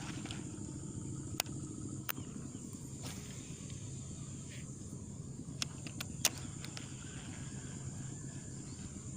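Steady high-pitched insect chorus, with a few sharp clicks, two in the first couple of seconds and a quick cluster of three a little past the middle.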